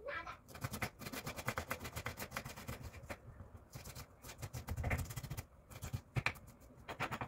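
Knife rapidly chopping ginger on a cutting board, mincing it fine: a fast run of short knocks, several a second, with brief pauses.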